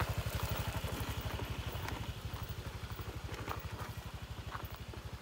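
Small motorcycle engine running with an even, rapid low thudding that fades steadily as the bike rides away down a dirt track, with a few faint ticks and rattles.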